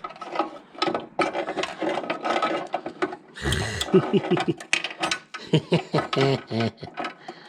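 Rapid metallic clicking and rattling of small parts and hand tools being worked while fitting a car's scuttle vent mechanism by hand. About three and a half seconds in, low voice sounds like muttering take over.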